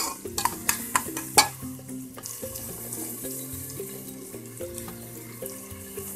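Sliced onions frying in oil in a pressure cooker: a steady sizzle, with several sharp clicks of stirring against the pot in the first second and a half.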